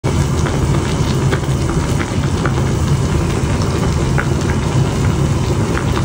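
Mugwort doenjang soup boiling in an earthenware pot: a steady low rumble with many small bubbles popping and crackling.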